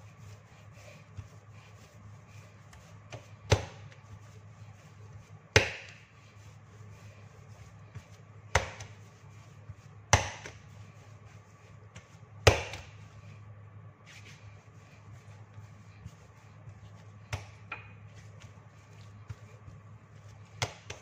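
Pandesal bread dough slapped down hard onto a granite countertop while being kneaded by hand: sharp thwacks every two to three seconds, about seven in all, the later ones softer, with faint pressing and rubbing of the dough between them.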